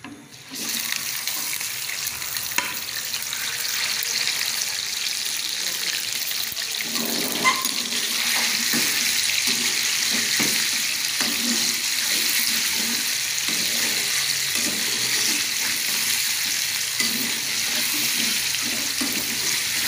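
Raw chicken pieces dropped into hot oil in a karahi, setting off a sizzle that starts suddenly about half a second in and keeps going. From about seven seconds in, a metal spoon stirs the pieces, knocking and scraping against the pan under the sizzle, as the chicken starts to brown.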